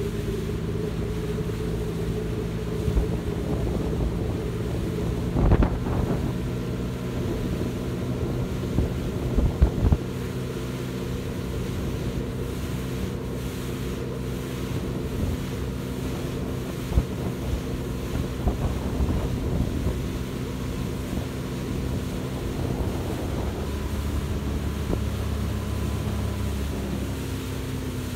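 Bass boat under way on outboard power: a steady engine drone with wind buffeting the microphone, and a few sharp thumps about five and ten seconds in.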